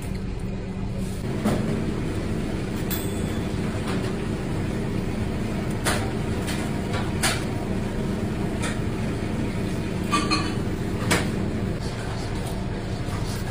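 A kitchen knife knocking and cutting on a plastic cutting board as mackerel are headed and gutted, a few short sharp knocks over a steady low rumble.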